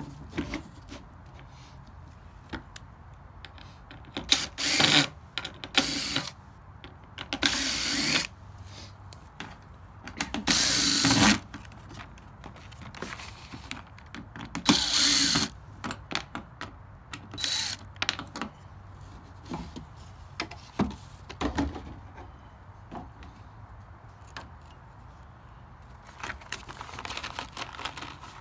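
Cordless power drill driving screws into wood in several short runs of about a second each, with clicks and knocks of handling between them.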